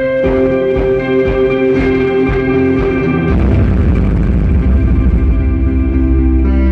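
Instrumental guitar music: picked guitar notes ring out over a steady rhythmic pulse, then about halfway through a heavy, low bass swell comes in and the sound grows fuller and a little louder.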